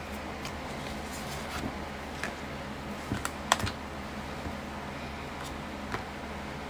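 Scattered light clicks and taps of a budget binder being handled: plastic page sleeves turned and a laminated savings-challenge sheet moved, with a sharper cluster of clicks a little past the middle. A steady low hum sits underneath.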